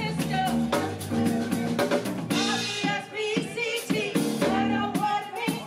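Live band playing: a drum kit keeping the beat, with electric bass and keyboard, and a woman singing into a microphone over it.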